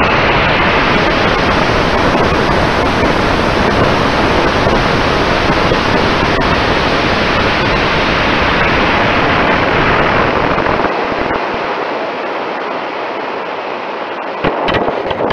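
K360 high-power rocket motor burning, heard from aboard the climbing rocket: a loud, steady rushing noise with wind over the airframe. About eleven seconds in the deep rumble cuts out as the motor burns out, leaving a thinner wind rush as the rocket coasts, with a few sharp clicks near the end.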